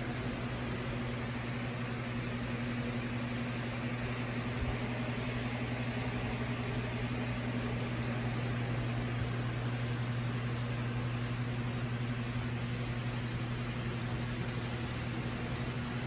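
Electric room fan running steadily: a constant low hum with an even hiss of moving air.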